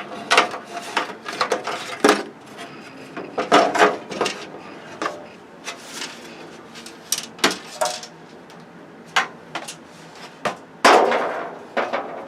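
Irregular knocks, clicks and clatter of a flat-screen television's plastic and metal parts being handled during disassembly, with a louder knock about eleven seconds in.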